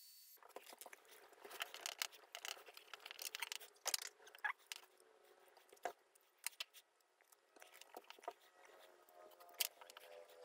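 Faint handling sounds of gloved hands fitting wooden handle scales onto a steel knife tang: scattered small clicks, taps and scrapes of wood against steel, with rustling of nitrile gloves and masking tape.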